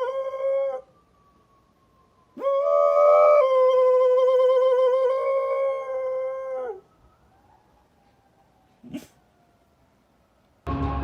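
A dog howling in two long, steady-pitched howls with a slight waver. The first ends under a second in; the second runs about four seconds and drops off at the end. A short click comes near the end, and music starts just before it closes.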